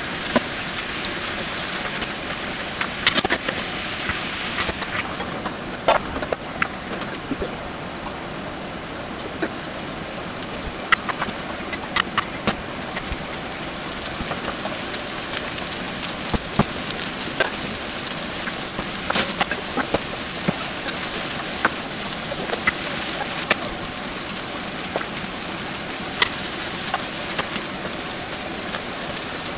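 Beef chunks, then sliced onions, sizzling in a frying pan: steady frying hiss with scattered clicks and scrapes of a utensil against the pan.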